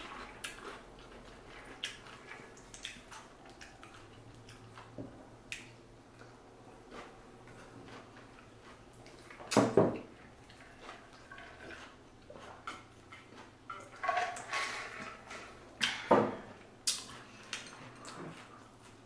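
Close-up eating sounds from people eating fresh spring rolls: chewing and mouth sounds with scattered small clicks. Two sharp, louder knocks come about ten and about sixteen seconds in.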